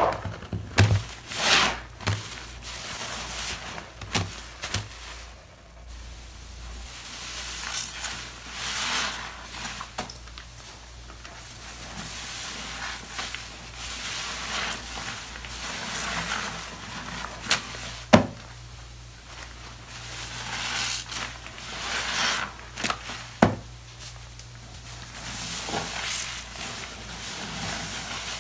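A soapy foam sponge being squeezed and wrung in a basin of water during rinsing: wet squelching and crackling foam swelling every couple of seconds, with water sloshing. A few sharp clicks stand out, the loudest about two-thirds of the way in.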